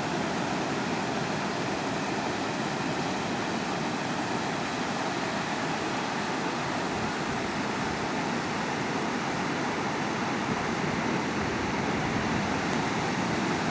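Steady rush of sea surf, waves breaking on a beach.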